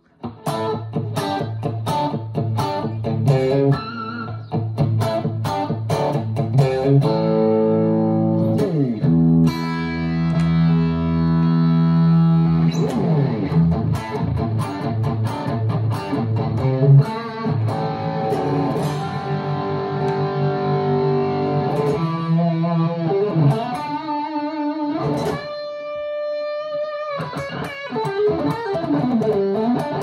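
2023 PRS Special Semi-Hollow electric guitar played through an amp: quick picked single-note lead lines and chords. It has pitch slides around a third of the way in and wavering vibrato on held notes and bends in the last part. It starts after a split-second silence.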